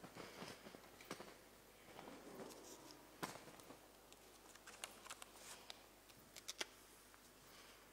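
Near silence: room tone with scattered faint clicks and soft rustles.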